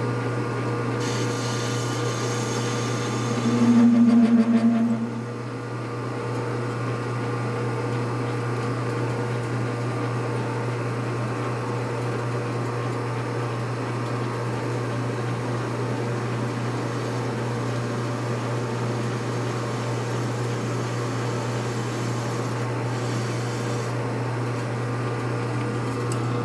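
Metal lathe running with a steady motor hum. About four seconds in, a louder single-pitched tone sounds for a second or two.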